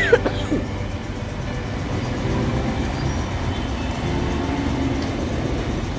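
Steady low rumble of a moving vehicle, heard from inside it. A short vocal sound comes right at the start.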